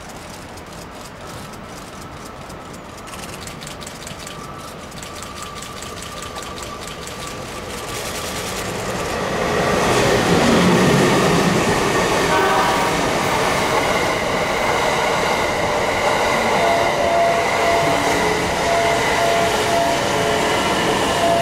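JR East E001 series 'Shiki-shima' sleeper train approaching and then passing close by. Its running noise grows steadily louder until about halfway through and then holds loud and even as the cars go past.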